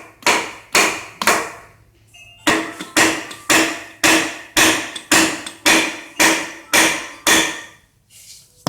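Hammer blows, about two a second with a short pause early on, each with a brief metallic ring. They are driving the rust-stuck clutch assembly out of a riding tractor's gearbox.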